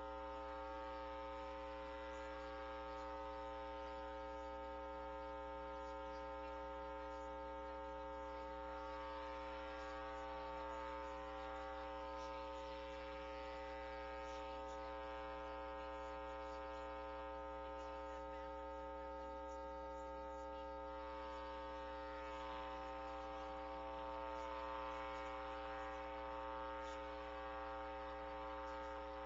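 Steady electrical hum and buzz made of several constant tones, with faint hiss, unchanging throughout.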